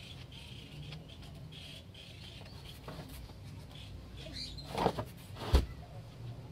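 A plastic spreader scraping body filler across a plastic car side skirt and scooping it off a wooden mixing board, in soft scraping strokes. Two knocks come about a second apart near the end, the second louder.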